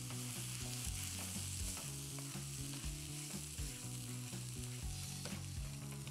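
Spinach and trahana sizzling steadily in a hot frying pan while a wooden spatula stirs through it, with scattered light knocks and scrapes of the spatula against the pan.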